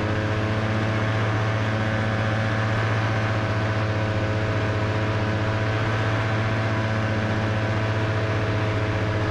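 Kolb Firestar ultralight's engine and propeller running steadily, a constant drone that holds one pitch.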